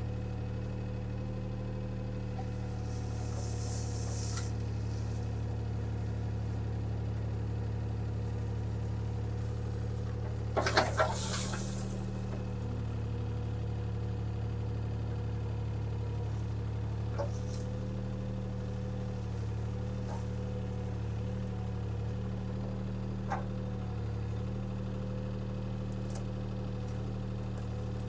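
Mini excavator's diesel engine running steadily, with a brief hiss a few seconds in. About ten seconds in comes a short burst of sharp knocks and cracks, the loudest sound, and a few faint ticks follow later.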